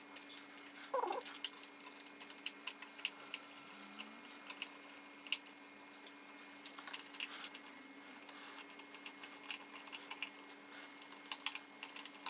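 Scattered light clicks and taps at irregular intervals as rack hardware is handled and fitted, over a steady low electrical hum.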